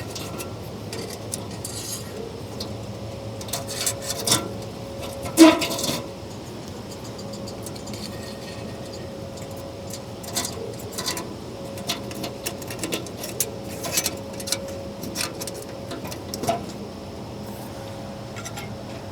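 Light clicks, knocks and clatter of metal camp-stove parts being handled and fitted together, with one louder clank about five seconds in.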